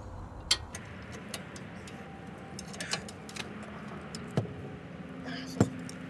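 Sharp metal clicks and clinks of a socket wrench working on the rear brake caliper bracket bolts as they are tightened. About seven clicks come at irregular intervals; the loudest are about half a second in and near the end. A steady low hum runs underneath.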